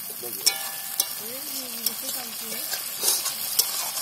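Curry masala sizzling in a steel kadai while it is stirred with a metal spoon, with a few sharp clicks of the spoon against the pan.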